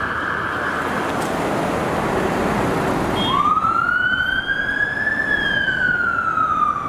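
A fire engine's siren starts up about halfway in and wails, one slow rise in pitch followed by a slow fall, over city traffic noise. In the first second a steady siren tone from further off fades out.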